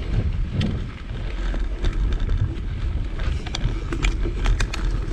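Wind buffeting the microphone while a mountain bike is ridden along a trail, with scattered sharp clicks and rattles from the bike and the ground under its tyres.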